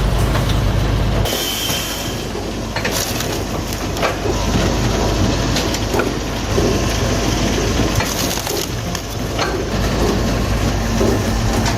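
Wood-processing machinery running, with irregular knocks and cracks of wood being cut and split. A low engine hum drops out about a second in, leaving the clatter and crushing of wood.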